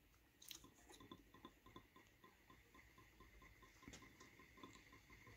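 Very faint: a Newman pulse motor running on a Hall-sensor circuit, with a soft regular tick about five times a second over a faint steady high tone. A few light clicks come as the Hall sensor board is handled.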